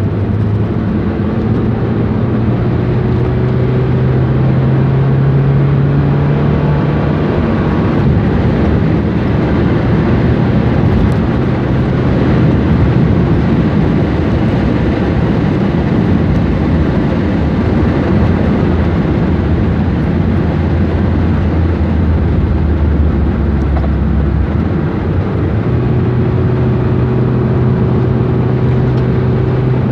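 Honda car's engine heard from inside the cabin under hard acceleration: its note climbs for the first several seconds, then drops back. It then runs on at speed under loud road noise.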